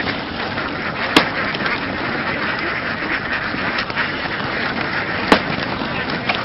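A large flock of laying ducks quacking, many calls overlapping into a continuous din, with two sharp clicks about four seconds apart.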